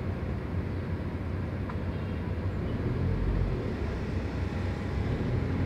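Steady low rumble of a car on the move, heard from inside the cabin, swelling a little partway through.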